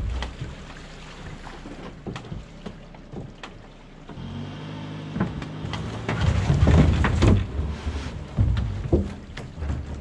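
An SUV's engine pulling under load as it tows a barge on plastic barrels up the bank, the engine note rising about four seconds in. Knocks, thumps and scrapes come from the barge's wooden deck and barrels being dragged over the shore, loudest a little past the middle.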